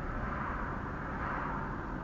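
Steady road and tyre noise heard from inside a moving car. Oncoming cars pass close by, with a swelling whoosh that peaks about a second and a half in.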